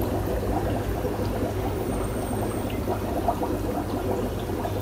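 Aquarium sponge filters bubbling steadily as air from an air pump rises through the tank water, with a constant low hum underneath.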